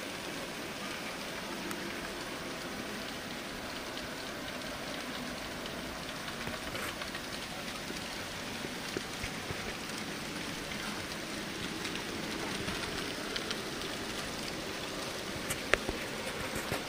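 Z scale model freight trains running: a steady rolling hiss from wheels and motors, with scattered small clicks and one sharper click near the end.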